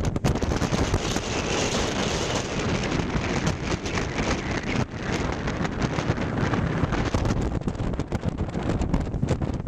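Strong wind buffeting the microphone in gusts, a loud rumbling rush with constant crackling and blasts.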